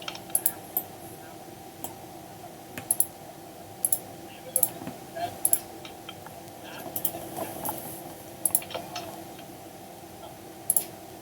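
Computer keyboard keys and mouse buttons clicking at an irregular pace, single clicks and quick pairs with short pauses between, over a faint steady hum.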